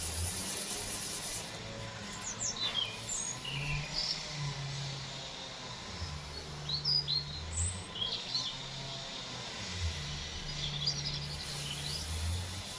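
Small birds chirping, with short high chirps scattered throughout over a steady background hiss.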